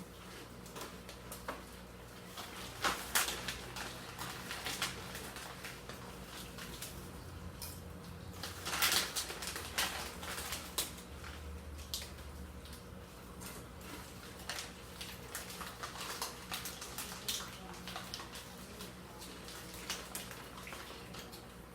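Faint, scattered rustles, taps and clicks of snack packaging being handled while food is eaten, with a few louder clusters of crinkling.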